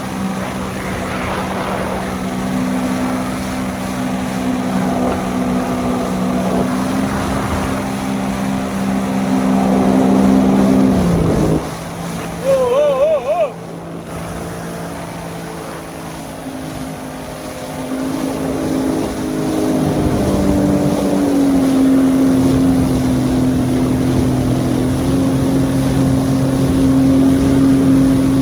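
Yamaha jet ski engine running hard, with wind buffeting the microphone. Partway through, the engine note drops as the throttle eases off, and a brief wavering high-pitched sound follows. Then the engine climbs back up to a steady, higher note.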